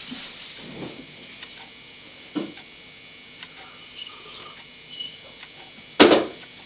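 Faint movement sounds, then a ceramic mug set down on a wooden side table with a sharp knock near the end, the loudest sound.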